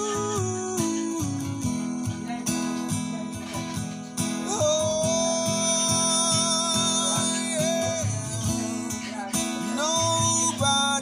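Background music led by acoustic guitar with a steady rhythm, and a long held melody line that comes in about four and a half seconds in.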